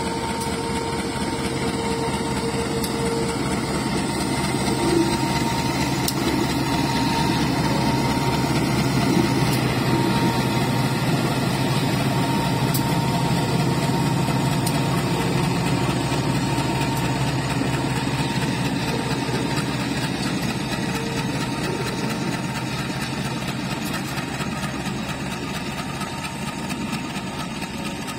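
CC201 diesel-electric locomotive's engine running as it slowly hauls a train past at close range. The sound swells over the first several seconds, then slowly fades as the locomotive moves on and the coaches follow.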